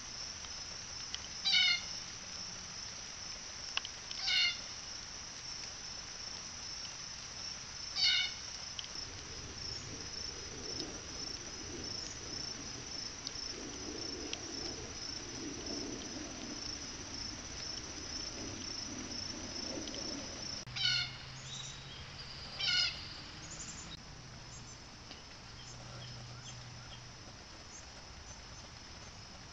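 Steady high buzzing of an insect chorus, broken by five loud, short animal calls: three spaced a few seconds apart near the start, then two about two seconds apart later on.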